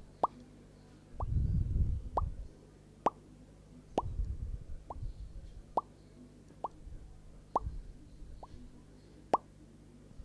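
Water drops dripping into water at a steady pace, about one plop every second, each a short clean pitched plop. A low rumble of noise comes in about a second in and lasts about a second.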